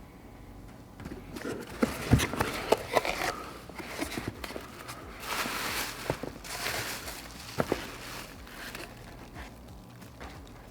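Packaging being handled and unwrapped: rustling with scattered sharp clicks and knocks, busiest in the middle.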